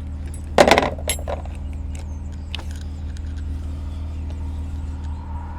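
Four-wheel-drive pickup truck engine idling, a steady low hum, with a short loud clatter about half a second in and a few light clicks after.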